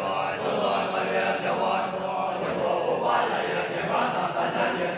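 A group of Tibetan Buddhist monks chanting together, many voices in one continuous chant.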